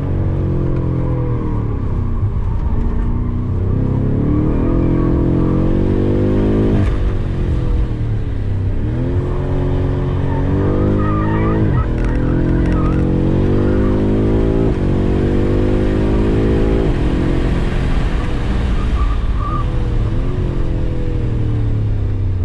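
BMW M5's twin-turbo V8 heard from inside the cabin, pulling up through the revs in several rising runs. Each run is cut off by a sudden drop at a gear change, with the revs sinking in between as the car slows for the corners. Brief tyre squeals come in around the middle and near the end on the wet track.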